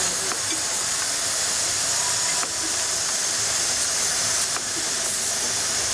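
Steam road roller hissing steadily, a high continuous hiss of escaping steam with a few faint clicks.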